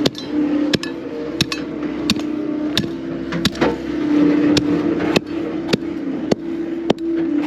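Regular sharp knocks about every two-thirds of a second, like a hand tamper striking soil and gravel in the trench, over a steady idling engine hum.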